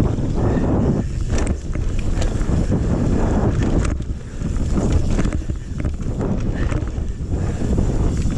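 Wind buffeting the camera microphone on a fast mountain-bike run over a dirt trail, with tyre rumble and frequent short knocks and rattles from the bike over bumps.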